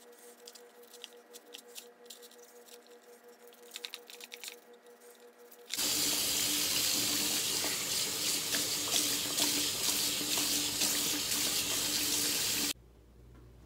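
Faint toothbrush scrubbing strokes on a piece of aquarium driftwood, then a tap turned on about six seconds in, running water over the wood in a stainless-steel sink, and shut off abruptly about a second before the end.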